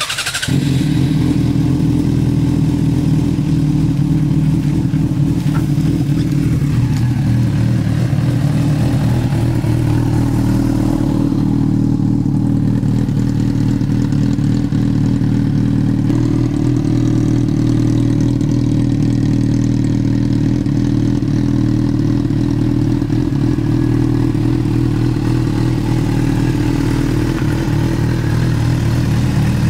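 2007 Yamaha FZ6's inline-four engine running at a steady engine speed through a homemade slip-on exhaust built from two glasspack mufflers. The note holds even throughout, with no revving.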